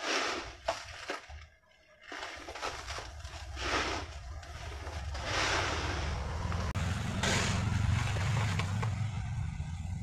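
Hands digging into and scooping dry, gritty concrete mix of small stone chips in a plastic bucket, letting it pour back: a grainy rustle and crunch in several bursts, over a low rumble in the second half.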